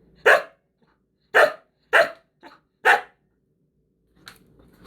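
Husky barking: four loud, short barks spaced roughly half a second to a second apart, with a faint little one between the third and fourth.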